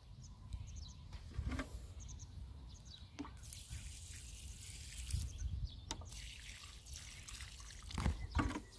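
Water trickling from the plain spout of a plastic watering can and splashing softly onto dry, sandy soil, starting a few seconds in. A few knocks near the end as the can is set down.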